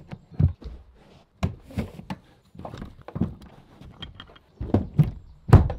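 Rear bench seats and headrests of a Mercedes estate car being folded down and handled inside the cabin: a string of irregular clunks, clicks and knocks of seat latches, backrests and headrest posts, the loudest near the end.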